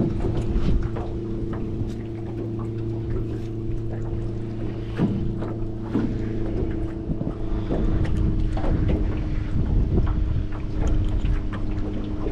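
A boat motor hums steadily while wind buffets the microphone. Small clicks and taps come through as a panfish is handled and unhooked.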